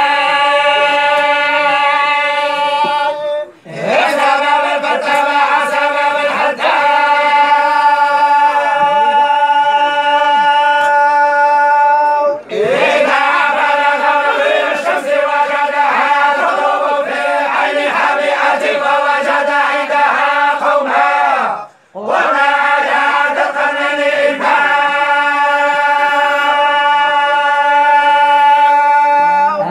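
A group of Moroccan tolba chanting a religious recitation together in unison, male voices holding long sustained notes. They break off briefly a few times, about three and a half seconds in, near twelve seconds and near twenty-two seconds.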